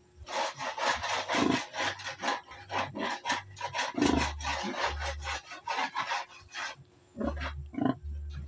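Irregular rubbing and scraping noises in quick, uneven strokes, thinning out for a moment near the end.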